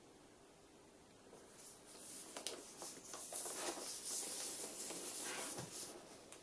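Paper wrapping on a cardboard gift box rustling and crinkling under the hands as the box is tilted and turned over, starting about two seconds in, with a few sharper crackles.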